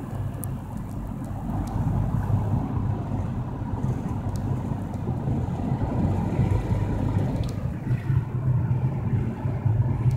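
Car driving along a road, heard from inside the cabin: a steady low engine and tyre rumble.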